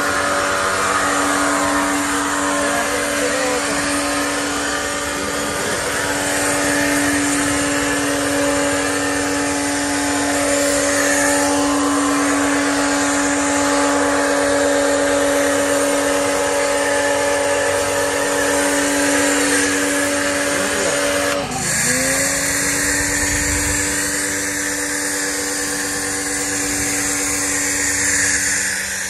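Electric pressure washer (Kapicon KP 40) running steadily, a motor-pump hum under the hiss of the spray from its gun and shampoo foam bottle. About three-quarters of the way through, the motor's pitch drops briefly and climbs back up.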